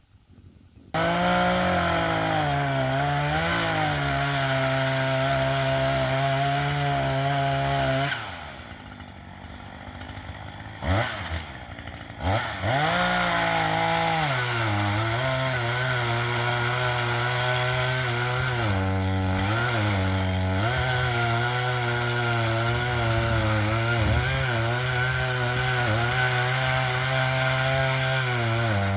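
Chainsaw revving up about a second in and running at high revs through wood, its pitch dipping again and again as the chain bogs under load. About eight seconds in it drops back to a low idle for a few seconds, with two quick blips of the throttle. Then it returns to full revs and cuts on.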